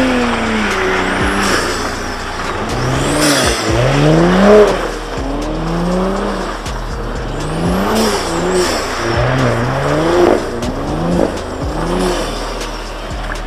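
Car engine revving hard and dropping back over and over, its pitch rising and falling in repeated swells, as the car spins donuts on a snowy road.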